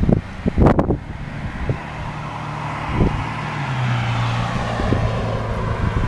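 Wind buffeting the microphone in gusts in the first second. Then a car passes on the street, its engine hum and tyre noise swelling and holding to the end.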